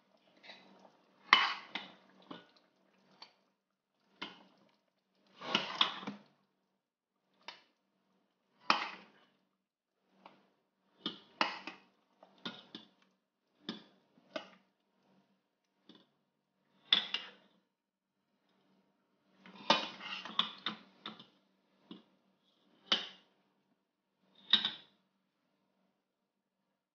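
Large metal serving spoon scooping stew out of a stainless steel pot and dishing it into a plate, with short clinks and scrapes of metal on the pot and plate every second or two.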